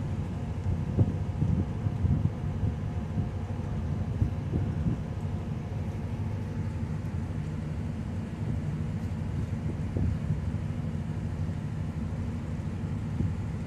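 Steady low engine rumble with a faint steady hum, mixed with wind buffeting the microphone.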